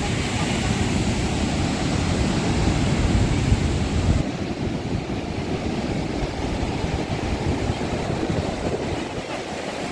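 Steady rush of moving water with wind buffeting the microphone; the low rumble drops suddenly about four seconds in, leaving a lighter, even rush.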